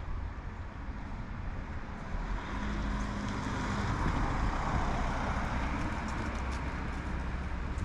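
A minibus driving past close by on the road, its engine and tyre noise swelling to a peak about halfway through and then easing, over a steady low rumble of traffic.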